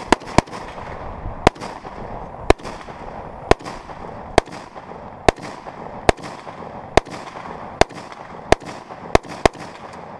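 Rifle fired in single shots, about a dozen bangs, mostly roughly a second apart and coming quicker near the end, each trailed by a short echo.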